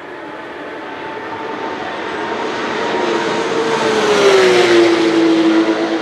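Race car running at speed on a wet track, growing louder as it comes closer. Its engine note drops in pitch as it passes, about four seconds in, with the hiss of tyres through standing water.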